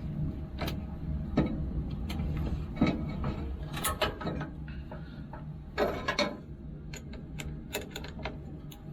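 Irregular clicks and knocks of hand tools on metal at a battery terminal, over a steady low hum.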